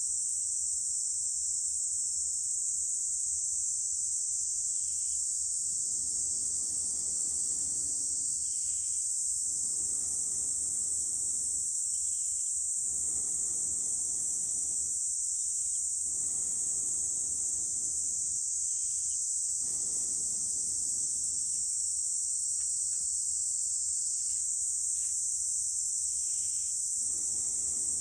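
A steady high insect drone throughout, with a fire-blowing pipe blown into the embers of a campfire in long breaths: about six blows of roughly two seconds each from about six seconds in, with short pauses for breath between them.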